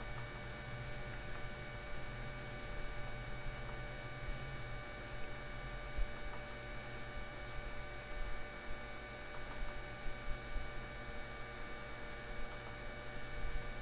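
Steady electrical mains hum in the recording, with a few faint clicks scattered through it.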